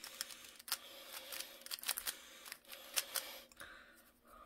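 Stickerless plastic 3x3 Rubik's-style cube clicking as its layers are turned quickly by hand: a string of sharp clicks at uneven intervals, thinning out near the end. The turns are a repeated move sequence in the last stage of solving the cube.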